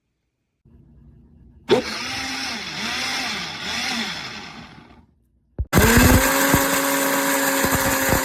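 PRASKY countertop blender's motor running in two bursts. In the first, the pitch keeps dipping and rising as the load in the jar changes, then it winds down. After a click it runs again at a steady, even speed.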